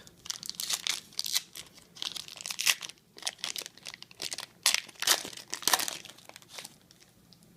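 Wrapper of a trading card pack being torn open and crinkled by hand: irregular crackling that stops about six and a half seconds in.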